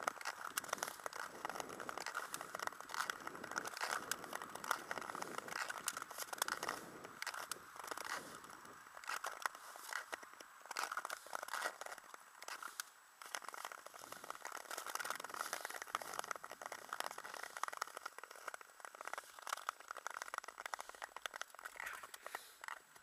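Ice skate blades scraping and crackling on an outdoor natural-ice track as the skater strokes along: a continuous gritty crunching.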